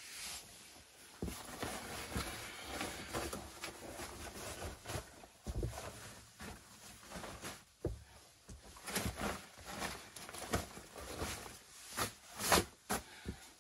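Rustling and crinkling of fabric as a camouflage bivvy bag and sleeping gear are spread out and smoothed on a sleeping platform, with scattered soft knocks.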